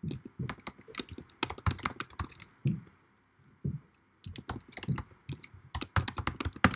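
Typing on a computer keyboard: irregular keystroke clicks, stopping for about a second midway, then a quick run of keystrokes near the end.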